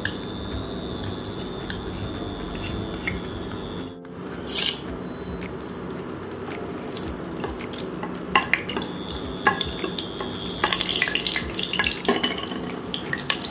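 Ghee melting and sizzling in a steel pressure cooker: a steady hiss. In the second half a wooden spoon scrapes and knocks against the pot.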